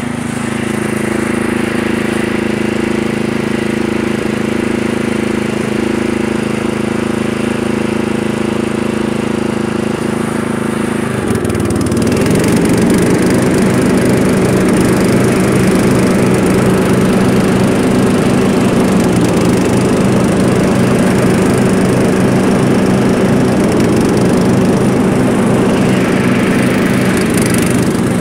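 Murray lawn mower engine running steadily while bagging leaves. About eleven seconds in, the engine note dips briefly, then settles at a higher, slightly louder speed.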